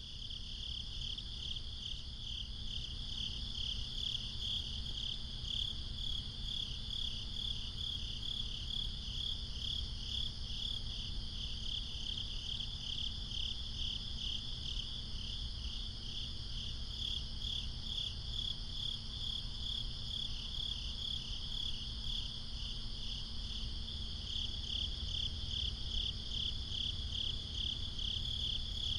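A chorus of crickets chirping at night, a high, evenly pulsing trill that keeps going without a break, over a low steady background rumble.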